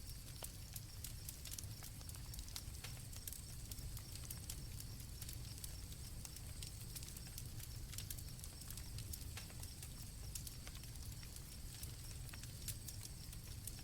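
Campfire crackling, with irregular sharp pops over a low steady rumble, and crickets chirping in a thin high band behind it.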